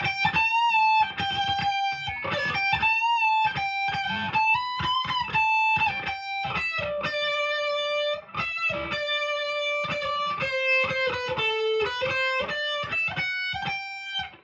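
PRS SE McCarty 594 electric guitar on its bridge pickup in full humbucker mode, played through the ultra gain channel of a Marshall DSL-1 amp: a distorted single-note lead line with wavering, bent notes, then longer held notes stepping down in pitch. It stops abruptly at the end.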